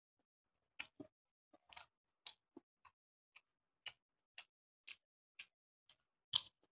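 Faint, short wet clicks of eating a rice meal by hand, about two a second, the loudest near the end.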